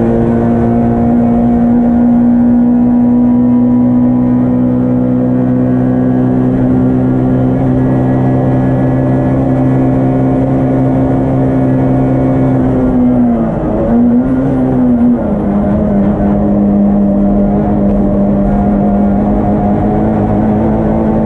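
Yugo race car's engine heard from inside the stripped, caged cabin, held high and pulling steadily with a slowly rising pitch. About thirteen seconds in it dips and wavers briefly, then settles at a lower pitch and climbs slowly again.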